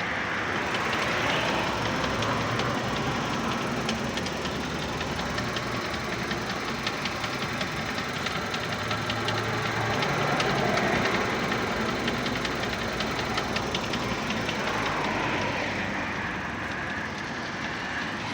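Car engine running with a rapid knocking from the manual gearbox, a knock that goes away when the clutch pedal is pressed.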